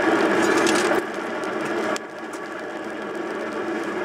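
Treadle-driven air blower of a 1930s Heyden Allball portable forge whirring steadily under the foot pump, getting quieter in steps about one and two seconds in.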